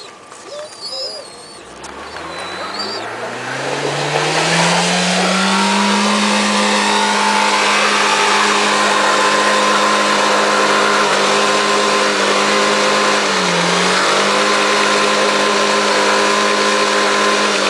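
Mitsubishi Pajero iO engine revving up over a few seconds and then held at high revs, with the hiss of its tyres spinning on ice that gives them no grip; the revs dip briefly once near the middle.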